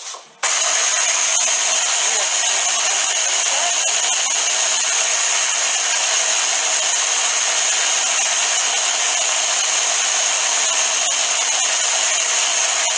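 Hand blender's motor unit running on its chopper bowl, chopping pesto of greens, walnuts, cheese and olive oil. It starts about half a second in and runs at a steady, even pitch.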